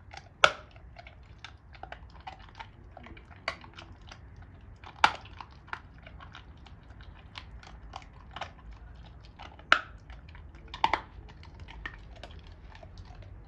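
A Doberman gnawing a raw pork bone: a steady run of small crunches and clicks from teeth on bone, with four loud sharp cracks spread through it.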